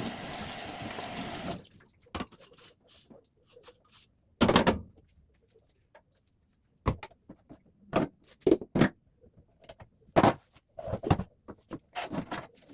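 A steady rush of noise that cuts off about a second and a half in, followed by scattered knocks and clatters of objects being handled and set down, the loudest a thud about four and a half seconds in.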